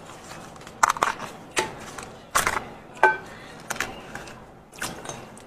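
Cooked sheep's head being torn apart by gloved hands: a run of sharp, separate crackles and snaps of bone and cartilage with wet, sticky tearing, one of them with a brief squeak.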